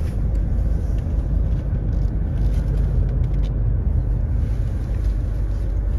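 Car on the move: a steady low rumble of engine and road noise.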